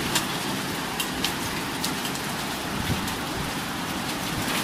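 Heavy rain falling in a steady hiss, with scattered sharp taps of drops.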